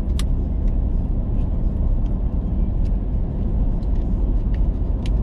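Road and engine noise inside a moving car's cabin: a steady low rumble. There is a sharp click just after the start and scattered faint ticks after it.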